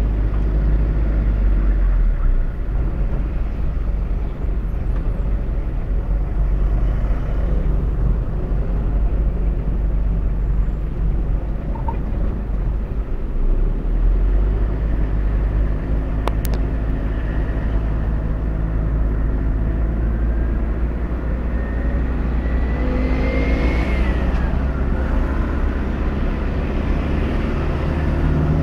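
Car engine and road noise heard from inside the cabin while driving: a steady low drone, with a faint whine that rises and falls about three-quarters of the way through.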